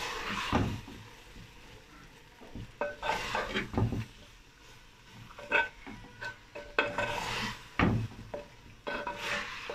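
Wooden spoon stirring chicken, spinach and radish in a clay cooking pot, with irregular scrapes and knocks against the pot. The food sizzles faintly on high heat.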